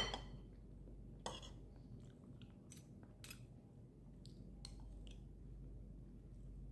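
Metal spoon and fork clinking and scraping on a ceramic plate of fried rice, with chewing. A sharp clink comes right at the start and another about a second later, followed by several lighter clicks.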